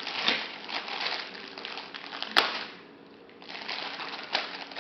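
Hard plastic toy parts rattling and clicking as they are handled and pried at, with one sharp plastic snap about halfway through.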